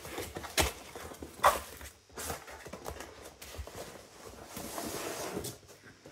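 A mailing bag rustling and crinkling as it is handled and a boxed kit is slid out of it, with two sharp taps in the first two seconds.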